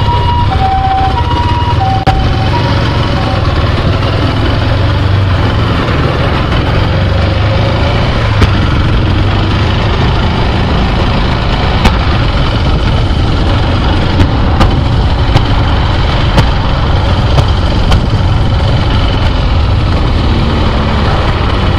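Motorcycle engine running steadily, a loud low rumble mixed with wind and road noise. An emergency vehicle's two-tone hi-lo siren fades out over the first few seconds. A few short sharp clicks come later.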